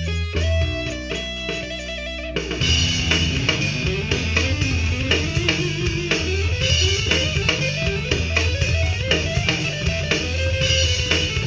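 Electric guitar playing melodic lead lines with slides between notes. A backing of bass and drums thickens the sound suddenly about two seconds in.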